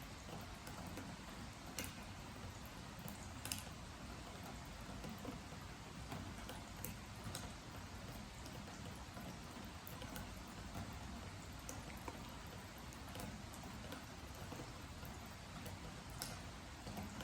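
Faint steady hiss of light rain, with single drips striking a wooden deck as sharp ticks at irregular intervals of a second or more.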